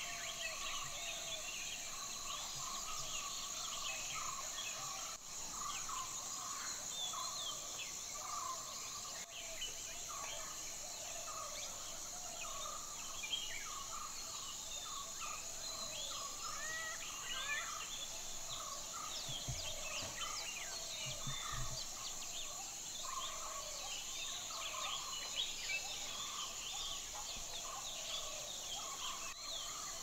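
Many forest birds calling over one another in short, swooping notes, over a steady high insect drone.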